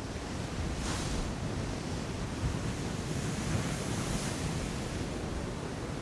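Sea waves washing against a rocky cliff shore over a steady low rumble of surf, with wind on the microphone. A short hiss of water comes about a second in, and a longer wash swells from about three to four seconds in.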